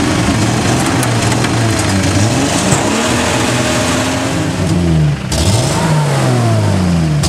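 Land Rover 4WD engine revving hard, its pitch rising and falling several times, as it works through soft sawdust. There is a brief break about five seconds in, after which the revving goes on.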